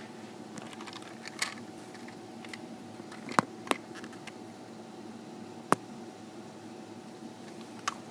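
Handling noise from a handheld camera or phone being moved about: about five sharp clicks and knocks, the loudest about three and a half and nearly six seconds in, over a steady low room hum.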